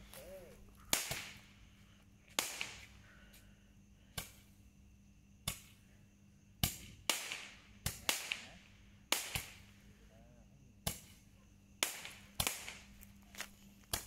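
Handheld multi-shot firework tube firing a string of sharp pops, about fifteen shots spaced unevenly around a second apart, coming closer together in the second half.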